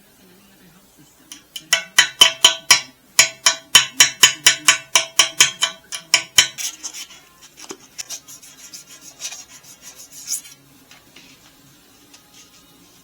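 Rapid back-and-forth scraping strokes of a hand tool on metal, about five a second, in two runs, with a slight ringing pitch to each stroke. Lighter, irregular scratching follows and stops a few seconds before the end.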